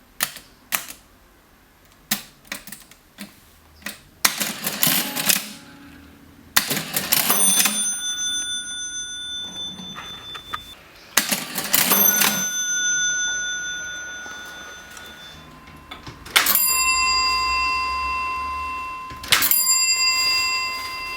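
Vintage mechanical cash register at work: a run of sharp key clicks, then the mechanism cranks and its bell rings, twice. Later a lower-pitched bell is struck twice, each ring lasting a few seconds.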